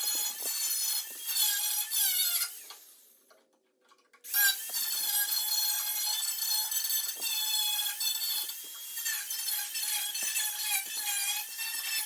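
Power tool cutting sheet-metal body panel, a high whine that wavers in pitch under load. It winds down about three seconds in and starts up again a second later.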